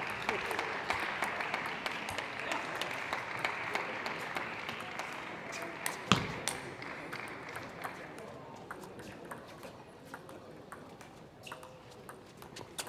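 Murmur of a hall crowd fading away over about eight seconds, with scattered light clicks and taps of a table tennis ball and one sharper knock about six seconds in.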